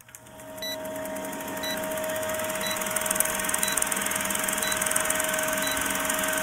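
Old film projector running: a fast, even mechanical clatter with a steady tone underneath and a short high blip about once a second, like a countdown leader's tick. It grows louder over the first couple of seconds.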